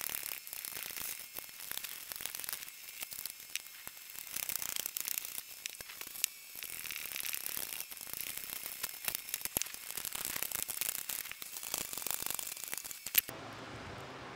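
A 3/8-inch drive socket ratchet with an extension clicks rapidly in spells as it runs nuts onto the bolts of a steel frame. It stops with a sharp click about 13 seconds in, leaving a faint steady hum.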